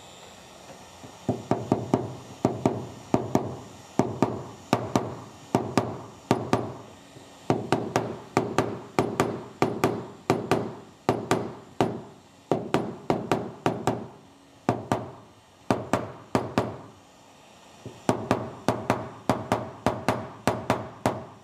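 Light repeated taps of a flat PDR paddle on a rubber-tipped tap-down tool held against the steel body panel of a 1966 Chevrolet Impala, tapping down the high spots around a dent. The taps come about two to three a second in runs with short pauses, each with a brief ring.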